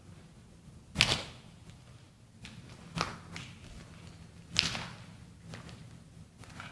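Slow footsteps on a rubble-strewn floor: a handful of sharp scuffing steps a second or two apart, the loudest about a second in and again past the middle.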